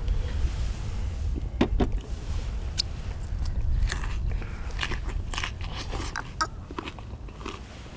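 Close-up biting and chewing of stir-fried Korean sundae sausage and vegetables: short, irregular clicks, most of them in the middle of the stretch, over a steady low rumble.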